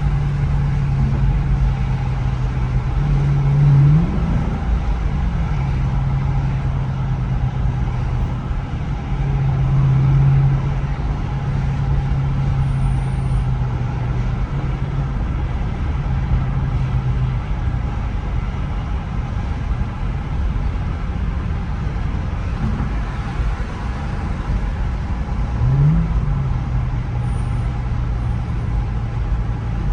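2014 Dodge Charger R/T's 5.7-litre HEMI V8 running while driving, a steady engine drone with quick sharp rises in revs a few seconds in and again toward the end, typical of downshifts.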